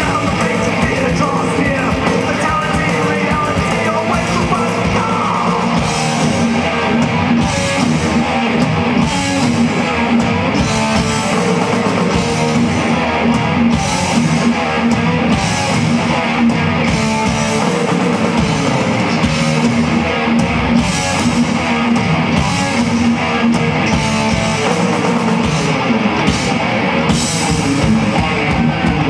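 Live heavy metal band playing loud: distorted electric guitars over a drum kit, with regular cymbal crashes.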